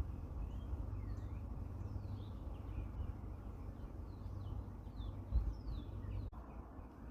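Several wild birds chirping and singing: a steady scatter of short, quick rising and falling chirps, over a low steady outdoor rumble.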